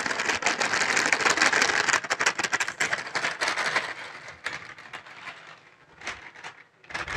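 Plastic bag crinkling and rustling as high-protein flour is shaken out of it into a stainless steel mixer bowl. The rustling is dense for the first couple of seconds, then fades, leaving a few light clicks near the end.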